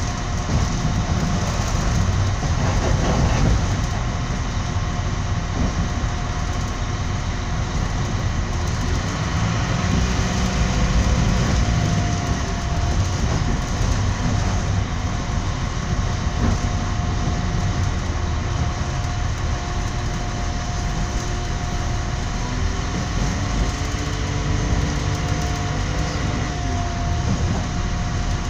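Moving train heard from inside a passenger carriage: a steady running rumble with a thin, steady whine over it.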